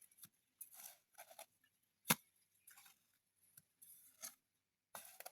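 Faint scraping of a trowel spreading cement plaster over stone walls, in short separate strokes, with one sharp click about two seconds in.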